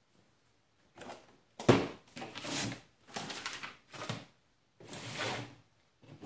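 Cardboard boxes being picked up, slid and set down on a plastic folding table. There is a sharp knock about a second and a half in, then several short scraping, rustling bursts as the boxes are moved.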